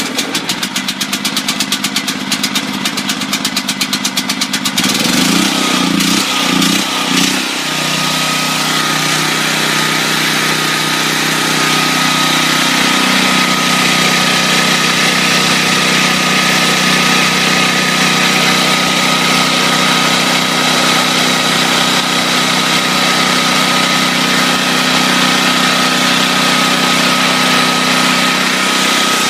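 Generac XG8000E portable generator's 410cc OHV engine running just after a cold start on choke. It runs with a fast, even pulsing for the first few seconds and wavers unsteadily about five to seven seconds in, then settles into a steady run with a constant tone.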